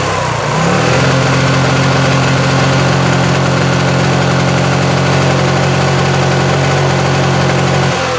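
Bajaj Legend scooter's four-stroke single-cylinder engine revved up over about a second, held at steady high revs, then let fall back near the end. Run hot, it knocks and misfires, a fault the mechanic suspects lies in the CDI ignition unit.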